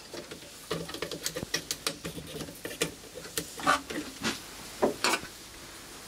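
Irregular sharp crackling snaps of high-voltage sparks from a homemade flyback transformer driver being test-fired. The snaps come unevenly, a few a second, with the loudest in the second half.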